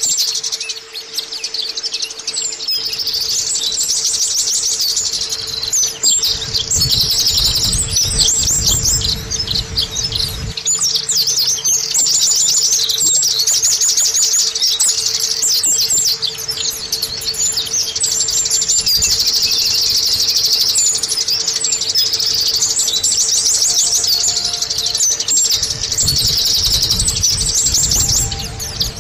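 White-eye (pleci, Zosterops) song: a long, fast run of high twittering chirps and trills, almost without a break, the kind of pleci song played as a lure to set a quiet bird singing.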